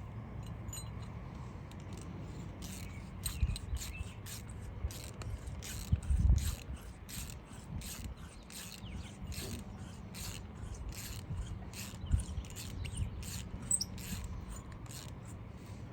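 Socket ratchet clicking in quick runs of a few clicks a second as it drives a Simpson Titan concrete screw through the bolt hanger into the rock, with a louder knock about six seconds in.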